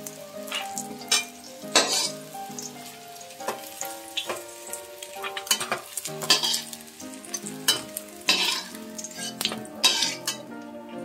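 Bitter gourd slices sizzling in mustard oil in a wok while a metal spatula stirs and scrapes against the pan in repeated sharp strokes. The gourd is fully fried and is being scooped out of the oil.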